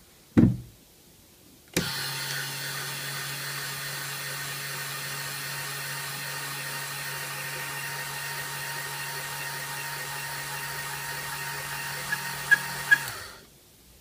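A single thump. About two seconds in, the small 12-volt DC gear motor of a 3D-printed scissor lift starts and hums steadily for about eleven seconds, driving the empty platform up. A few clicks come near the end, and the motor stops as the lift reaches the top of its travel, where a limit switch cuts it off.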